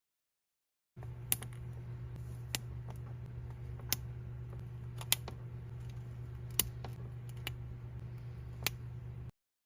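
Small plastic minifigure parts clicking as they are handled and snapped together: about six sharp, light clicks at irregular intervals over a steady low hum.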